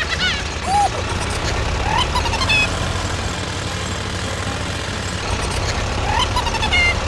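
A steady, low engine-like rumble of a small tractor, with short chirping tones that rise and fall: twice near the start, a run of them around two seconds in, and another near the end.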